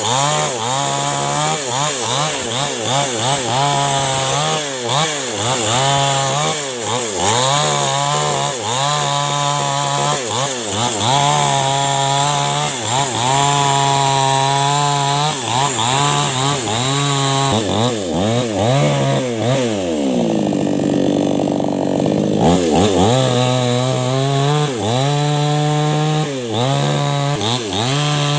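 Chainsaw engine running under the operator's throttle, its pitch rising and falling again and again as it revs. For a few seconds past the middle it drops to a low, even speed, then revs back up.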